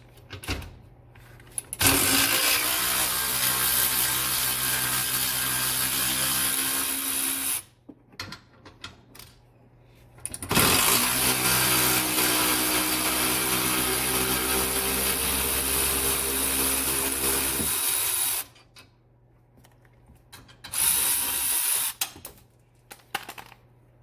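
A handheld power tool with a socket running bolts out, in three steady runs: about six seconds, then about eight seconds, then a short one-second burst, with short clicks and handling sounds between them.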